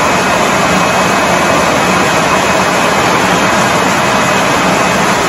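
Sawmill machinery running with a loud, steady din and a low hum underneath, while the log carriage moves toward the saw; no cut is heard yet.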